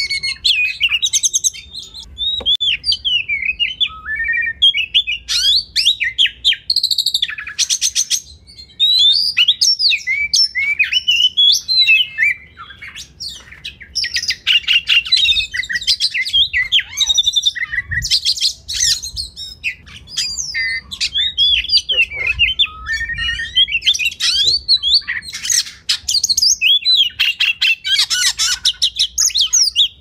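Oriental magpie-robin (kacer) singing a continuous, varied song: whistled rising and falling phrases and quick trills interspersed with harsh, scratchy chattering notes, with only brief pauses.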